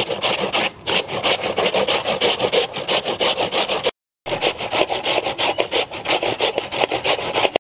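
Raw potato being grated by hand on a stainless steel grater over a metal basin: quick rasping strokes, several a second, with a brief total break about four seconds in.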